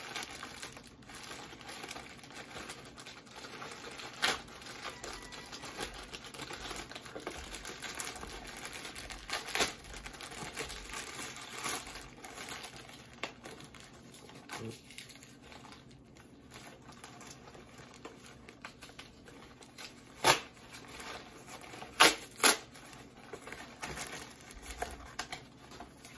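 A plastic mailing package being crinkled and torn open by hand: a continuous rustle with sharp snaps now and then, the three loudest close together near the end.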